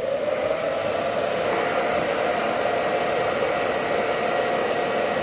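Hair dryer running steadily on heat, a loud even rush with a hum from its fan, used to warm a phone's screen and soften the adhesive so the old screen can be detached.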